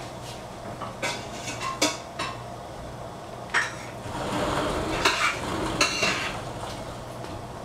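Dishes, pans and cutlery being handled, with a string of sharp clinks and knocks and a busier stretch of clattering and scraping in the middle. A steady low hum runs underneath.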